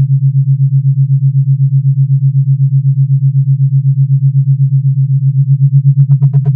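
Generated sine-tone binaural beat: two low tones a few hertz apart that blend into one steady hum, pulsing about eight times a second. About six seconds in, a brighter, buzzier tone with overtones joins, pulsing at the same rate.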